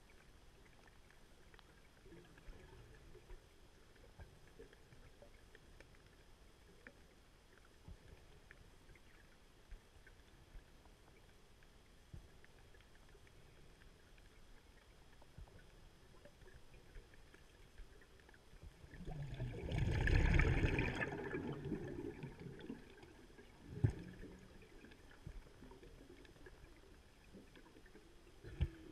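Underwater sound: a faint steady hiss with scattered small clicks. About two-thirds of the way in, a loud rush of scuba air bubbles gurgles past for about two seconds. A single sharp knock follows a few seconds later, and another comes near the end.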